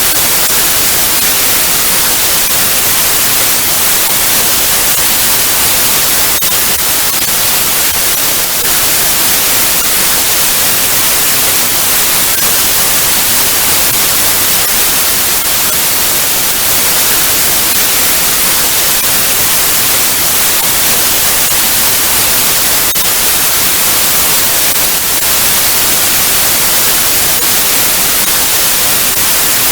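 Television static: a steady, loud hiss of white noise, brightest in the treble, with no change in level.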